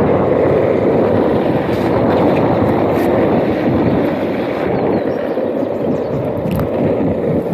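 Steady wind rush on the camera microphone together with the rolling roar of Seismic Alpha 80.5 mm urethane longboard wheels on asphalt during a fast downhill skateboard run.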